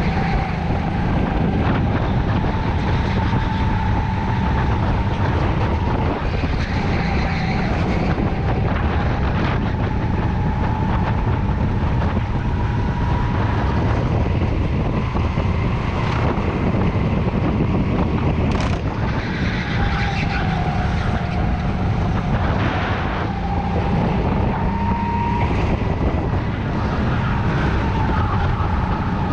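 Sodi rental go-kart's engine running on a lap, its pitch dipping and rising with speed through the corners, over a heavy low rumble and wind on the onboard microphone.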